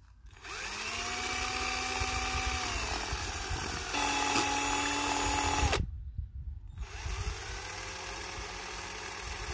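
Electric drill with a mixing bit running in three bursts, its motor whine spinning up and winding down each time, the second burst faster and cut off sharply, as it stirs a small batch of fibreglass resin with its catalyst.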